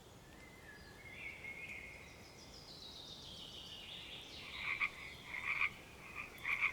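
Frogs croaking: a run of short, repeated calls starting about four and a half seconds in, after fainter high sliding calls.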